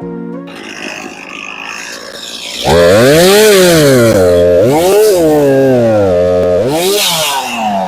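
Stihl chainsaw running loud at high revs, its engine pitch rising and falling several times as the throttle is worked, then dropping off near the end.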